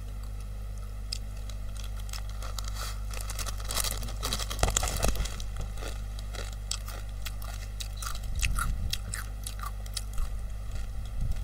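Crunching and chewing of a dry, brittle snack, likely a block of uncooked instant noodles, bitten close to the microphone. A dense run of crunches comes about four seconds in, with scattered crackles through the rest.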